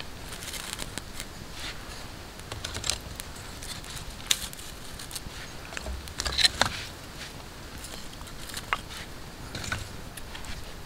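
Freshly lit kindling campfire of dry twigs catching, crackling with scattered sharp snaps and pops over a faint hiss; the loudest cluster comes about six and a half seconds in.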